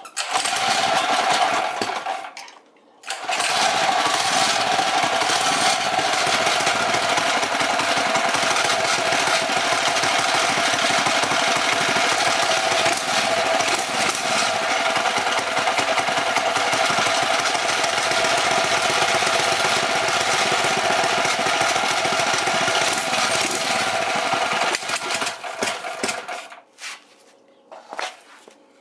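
Predator 212cc single-cylinder engine on a mini bike starts, runs for about two seconds and dies. It starts again about three seconds in and runs steadily until it sputters, backfires and cuts off near the end. This is a sign that the carburetor's air mixture screw is not set right.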